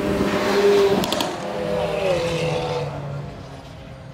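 A car engine passing at speed: a steady, loud tone whose pitch drops about two seconds in, then fades away.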